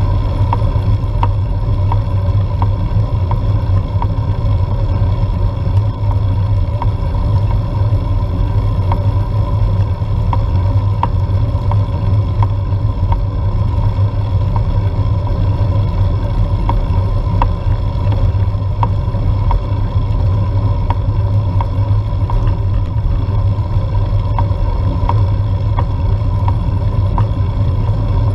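Steady low rumble of wind and road vibration on a GoPro Hero4 Silver riding on a road bike at a climbing pace. Light ticks come about once a second.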